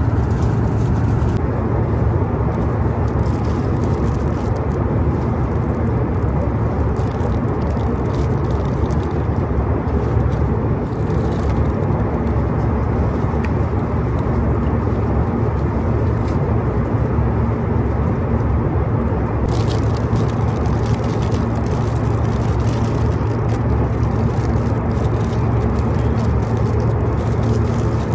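Jet airliner cabin noise in flight: a loud, steady low drone of engines and airflow, unchanging throughout.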